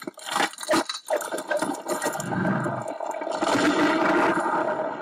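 Animated-film sound effects of glacier ice cracking: a few sharp cracks, then a long creaking, rumbling split that swells in the middle and fades near the end.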